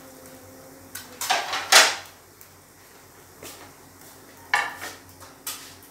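A few short bursts of clattering household handling noise, the loudest a little under two seconds in and another cluster near five seconds, over a faint steady hum.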